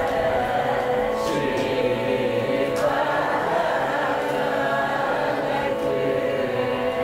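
A group of voices singing a Carnatic song together in unison, with occasional soft hand claps keeping the tala.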